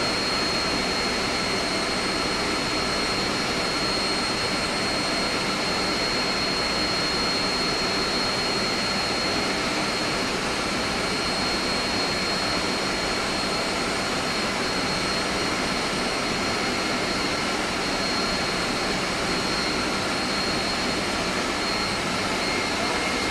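Steady, loud machine-room drone of an air-conditioning chiller plant, with a steady high whine over it.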